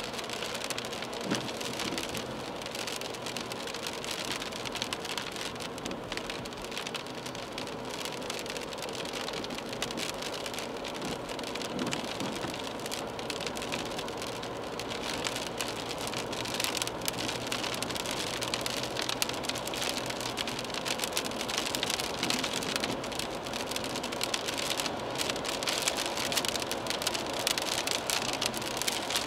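Raindrops pattering on the windshield of a moving BMW 320d, heard inside the cabin over the steady hiss of tyres on wet road and the car's running noise. The patter grows a little louder in the second half.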